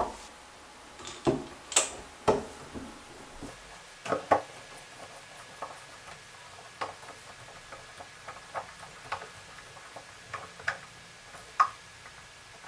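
Hand screwdriver driving a screw into the unthreaded plastic top of a Moen faucet cartridge to hold the stem extender, the screw cutting its own way into the plastic. Scattered light clicks and taps, a few louder ones in the first few seconds, then smaller irregular ticks as it turns.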